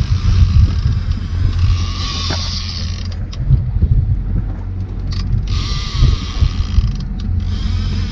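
Mechanical ratcheting of a fishing reel being worked, over a steady low rumble.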